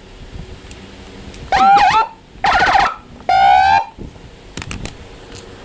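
AS 940 electronic siren horn box sounding three short blasts of about half a second each, each a different tone: a quick sweeping whoop, then a harsh buzzy tone, then a fast warble.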